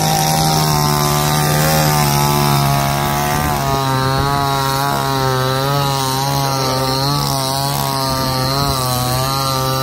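Chainsaw running while cutting up a fallen tree: a steady engine tone whose pitch begins to waver slightly about three and a half seconds in.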